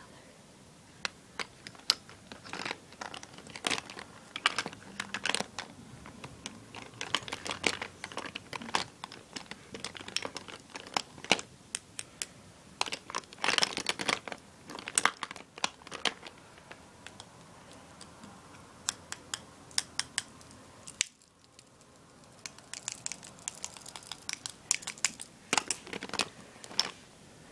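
Hands rummaging through a plastic makeup bag: crinkling of the bag with many irregular sharp clicks and taps of makeup items such as compacts, brushes and pencils knocking together. The handling pauses briefly about three-quarters of the way through, then picks up again.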